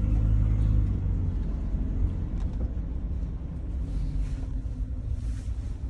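Van's engine and road rumble heard from inside the cabin, loudest for the first couple of seconds and then easing off.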